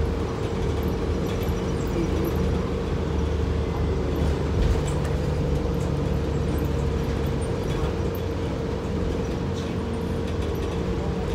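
Cabin noise of a 2005 Gillig Low Floor transit bus under way: steady engine and road noise with a constant whine, and small rattles here and there.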